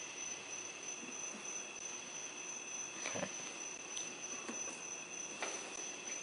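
Soft handling sounds of hands pressing an adhesive rubber tread strip onto a mower wheel: a few light rubs and taps, the plainest about three seconds in and again near the end, over a steady high-pitched background drone.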